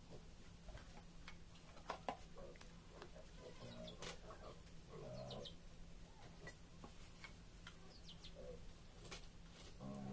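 Faint scattered clicks and taps, with a few short high chirps like a small bird's.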